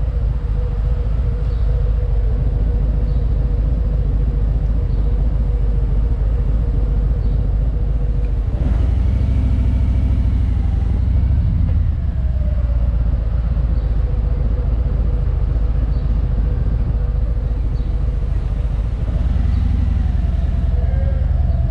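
Touring motorcycle's engine idling with a heavy low rumble. About nine seconds in it revs up as the bike pulls away, and it picks up again briefly near the end in slow traffic.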